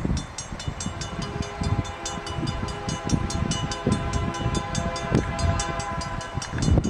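A level-crossing bell starts ringing in a fast, even ding-ding-ding. About a second in, an approaching CN C44-9W diesel locomotive joins it with a long, steady chord-horn blast that holds for about five seconds, the warning for the crossing.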